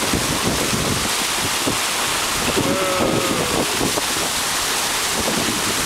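Wind rushing over the microphone with the steady rush and splash of a boat's wake through rough open sea.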